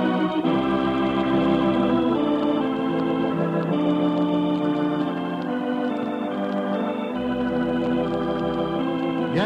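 Organ music: slow, sustained chords shifting every second or two, playing as the radio program's opening theme.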